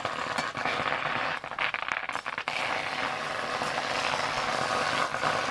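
Chopped kharkol and giant taro leaves sizzling as they dry-fry in an aluminium pan, the water they release cooking off. A flat spatula scrapes and knocks against the pan several times about one and a half to two and a half seconds in.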